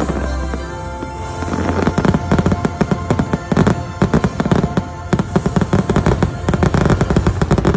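Fireworks finale: a rapid, dense volley of pops and bangs building from about a second and a half in over show music, stopping abruptly at the very end.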